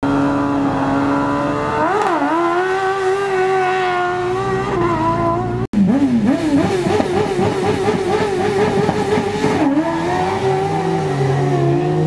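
Single-seat buggy race car engines revving high and held steady while waiting to launch from the start line, with quick dips and blips in pitch. The sound cuts out sharply for an instant about halfway through, and near the end a second, deeper engine joins.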